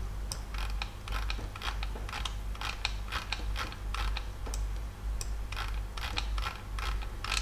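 Computer mouse clicking, an irregular run of sharp clicks a few times a second, as the map view is zoomed in, over a steady low hum.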